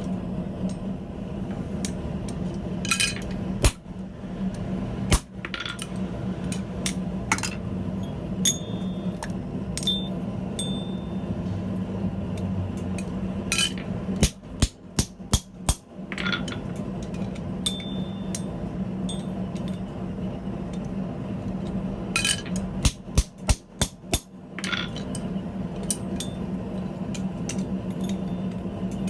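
Blacksmith's hammer striking metal on an anvil: scattered single blows, and two quick runs of about five or six strikes, one about halfway through and one near the end, over a steady low hum.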